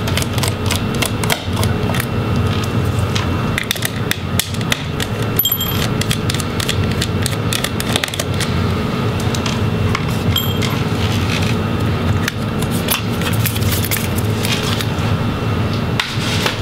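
Small screwdriver turning out the laptop's battery screws, and the battery being lifted out: many light clicks and ticks of the metal tool on screws and plastic and metal parts, over a steady low hum.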